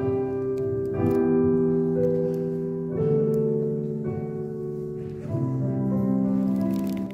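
Keyboard playing slow, sustained chords with no voices, the chord changing about every two seconds.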